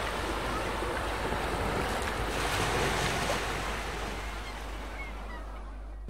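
Steady rushing of wind and sea surf, swelling a little around the middle and easing toward the end. A few faint, high bird calls come near the end.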